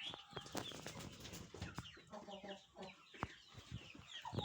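A flock of chickens clucking and cheeping together in a poultry house, with scattered small clicks and knocks.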